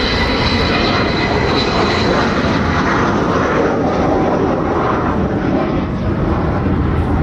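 Avro Vulcan's four Olympus turbojets during a flying display banking pass, giving loud, steady jet noise. The high whistling tones of the Vulcan's characteristic howl fade in the first second or two as the bomber turns away.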